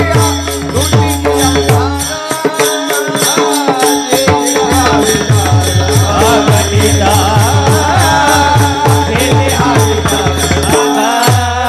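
Kirtan devotional music: a voice singing over a sustained harmonium-like drone, with a hand drum and small hand cymbals keeping a quick, steady beat. The drum drops out for a couple of seconds early on and again briefly near the end.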